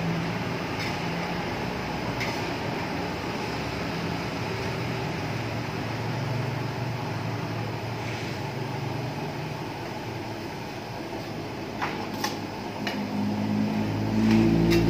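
Battered pisang raja (banana) slices deep-frying in a large wok of hot oil over a gas burner: a steady sizzle and rush. A few sharp clinks of the metal spatula against the wok come mostly about twelve seconds in.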